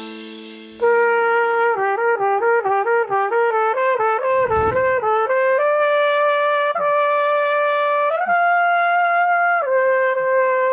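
Solo trumpet playing, starting about a second in: a fast run of alternating notes, then a few long held notes, stepping up once and then down to a lower note held to the end.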